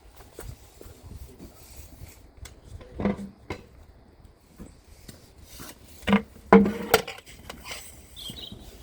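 Hand tools and metal parts being handled: scraping and rubbing with scattered clicks, and a few louder clanks with a short metallic ring about three seconds in and twice more around six to seven seconds in.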